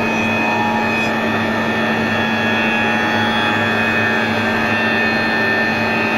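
Four-side planer moulder running steadily, its cutter spindles and motors giving a constant loud hum with steady higher whining tones.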